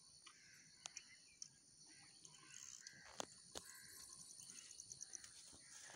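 Faint lakeside ambience: a steady high insect drone with two spells of rapid chirping, a few scattered bird calls and light clicks.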